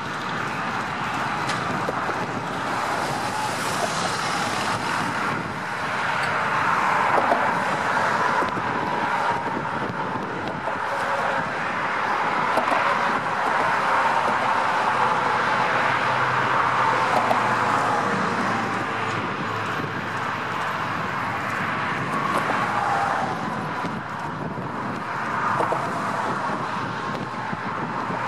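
Steady road traffic noise, passing cars swelling and fading every few seconds.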